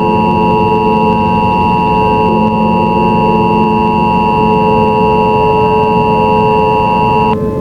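Emergency Alert System attention signal: a steady two-tone beep that cuts off suddenly near the end, over a low droning music bed.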